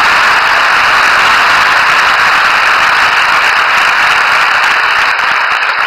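A large seated audience applauding steadily, the clapping thinning out near the end.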